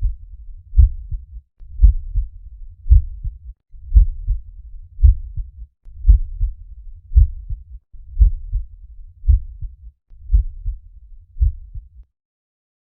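Normal heart sounds: a steady lub-dub at about one beat a second, each loud first sound followed closely by a softer second. The beating stops about twelve seconds in.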